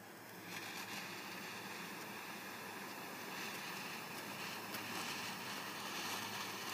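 Flip-top butane jet lighter burning with a steady hiss as it lights a cigarillo, cut off at the end by a sharp click as the lid snaps shut.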